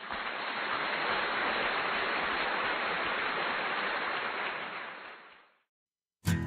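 A steady rushing hiss, like static or rain, fades out about five seconds in. After a brief silence, strummed acoustic-guitar music begins near the end.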